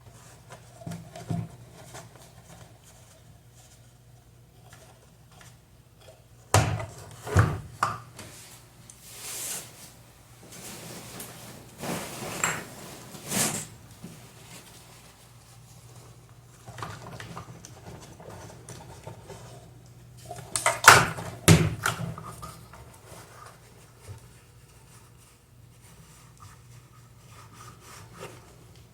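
Hand-working noises from a fan being repaired: scattered knocks, clatters and rubbing of parts being handled and fitted, loudest in two clusters, a few seconds in and about two-thirds of the way through. A faint steady low hum lies underneath.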